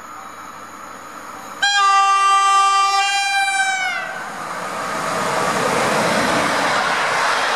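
EP07 electric locomotive sounding its horn in one loud blast of about two seconds, the pitch dropping near the end as it passes. The steady noise of the intercity train's wheels running past on the rails follows.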